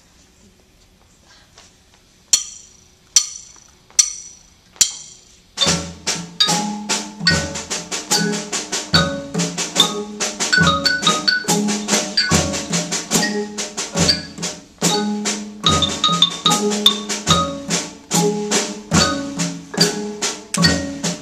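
Four sharp, evenly spaced clicks count in, then a marimba played by three players with mallets comes in, improvising on a D-flat pentatonic scale with a repeating low note under the tune.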